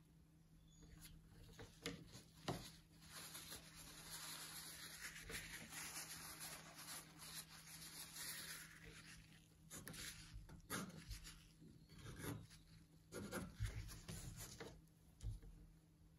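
Faint rubbing as a cloth rag wipes an oil-paint brush for several seconds. Then comes a string of short brush strokes and dabs, with a few light knocks, as paint goes onto the painting panel.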